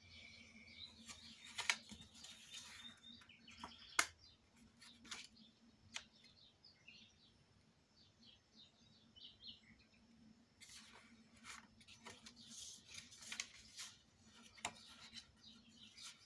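Faint rustling and crinkling of white cardstock being folded and pressed by hand, with a few sharp taps and clicks of the card against the table.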